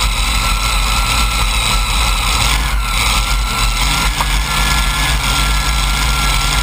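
The supercharged Hemi V8 engines of a multi-engine modified pulling tractor idling steadily at the start of a pull. The engine note steps up slightly about four seconds in.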